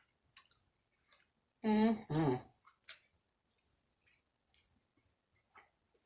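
Close-up eating sounds of a person chewing chili cheese fries: scattered wet mouth clicks and smacks. About two seconds in, a short two-part voiced sound from the eater, like a hummed 'mm-mm'.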